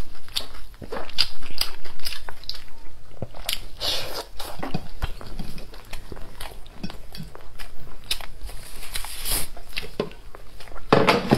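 Biting and chewing of meat, a dense irregular run of short sharp mouth clicks.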